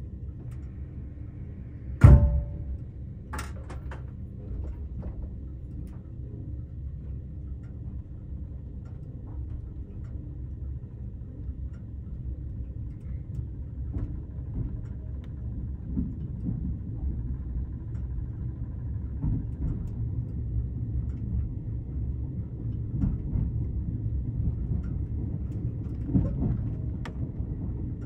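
Interior of a 381-series electric limited express train: a loud clunk with a short ringing about two seconds in, a second lighter knock just after, then the low running rumble of the train, growing steadily louder, with a few small knocks near the end.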